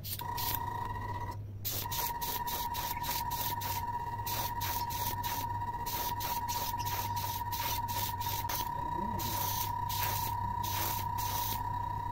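Airbrush spraying a thin first coat of white two-part epoxy primer onto plastic fishing lures: a hiss of air and paint in quick bursts, several a second, over a steady high whine that stops briefly about a second and a half in and then runs on.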